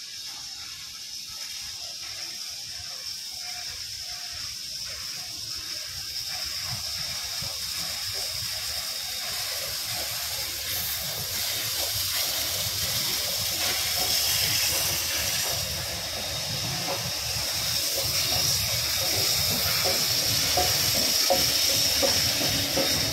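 Steam hissing from two steam locomotives, Victorian Railways R class R766 leading and 59 class 5917 behind, as the train rolls slowly past, with a low rumble of the train growing steadily louder as it comes nearer.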